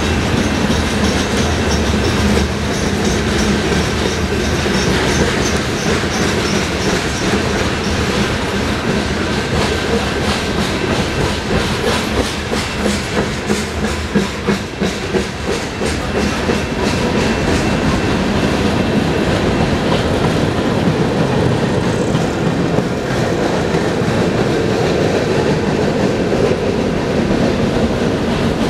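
BNSF freight cars rolling past, with a steady rumble of steel wheels on rail. Through the middle there is a stretch of clickety-clack as the wheels pass over rail joints.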